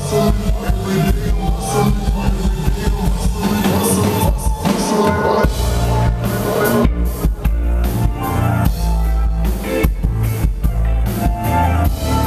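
Live band playing loud: a drum kit keeping a steady beat over a heavy bass line and keyboards.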